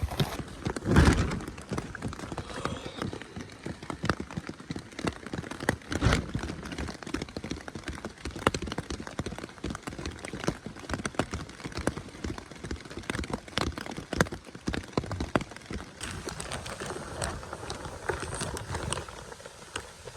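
Steady rain, with many irregular drops ticking on a nearby surface. There are two louder thumps, about a second in and about six seconds in.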